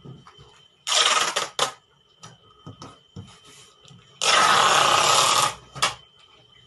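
Packing tape being pulled off the roll across a cardboard box: a short screeching pull about a second in and a longer one of well over a second past the four-second mark, with light taps and rustles of hands on the box between them.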